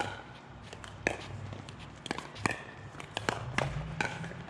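Pickleball play: paddles striking the hard plastic ball and the ball bouncing on the court make sharp pops, about half a dozen at irregular intervals. The loudest comes right at the start.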